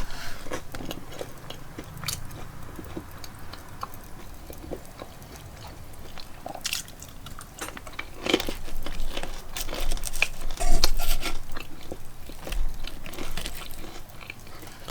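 A person biting and chewing corn dogs and french fries: irregular crunchy bites and chewing, sparser at first and busier in the second half.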